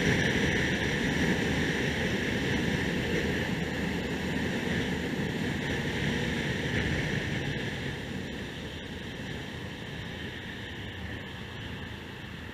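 Wind rush and road noise on a helmet-mounted camera while riding a motorcycle, fading gradually over the last few seconds as the bike slows.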